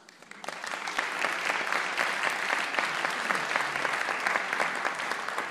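Audience applauding: clapping breaks out at the start and swells within about a second into steady, dense applause.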